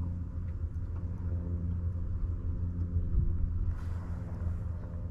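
Boat motor running steadily with a low hum. A short hiss comes about four seconds in.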